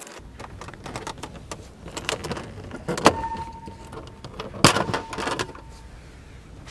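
Plastic dashboard defroster panel being pulled off by hand, with a run of cracking snaps as the trim clips let go; the loudest snaps come about three seconds in and again near five seconds. The trim sounds like it is breaking but is only coming apart at its clips.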